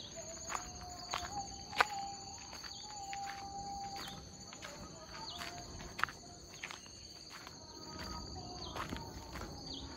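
Footsteps on a stony dirt track, with sharp scuffs and knocks at irregular intervals, over a steady high insect drone. Short falling bird chirps come now and then.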